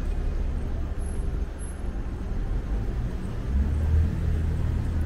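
City street traffic: the low rumble of motor vehicles running, swelling louder about three and a half seconds in.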